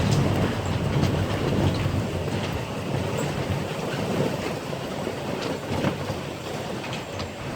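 Storm wind blowing hard across the microphone in a steady low rumble, with scattered short knocks and clicks throughout.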